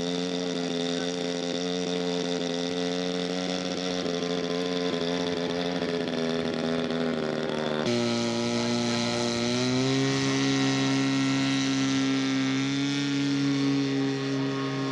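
Radio-controlled scale model airplane's engine running steadily. About eight seconds in the sound changes abruptly, then the engine's pitch rises in two steps.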